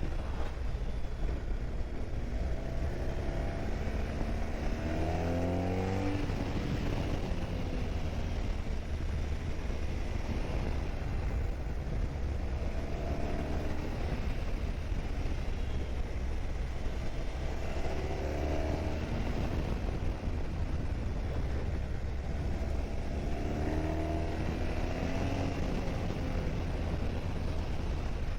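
Motorcycle riding at speed under a steady low rumble, its engine note rising in pitch several times as it accelerates.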